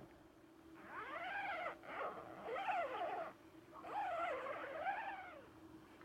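An animal calling: about five wavering calls, each rising then falling in pitch, in two groups with a short break about halfway. A faint steady hum lies under them.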